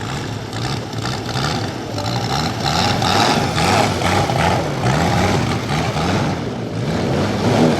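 A large-scale RC model's 400 cc radial engine running loudly, its pitch rising and falling over and over.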